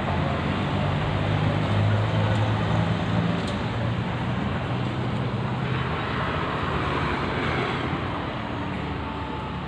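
Road traffic: a motor vehicle's engine running with a steady low hum, then a swell of engine and road noise about six seconds in as a vehicle passes, fading toward the end.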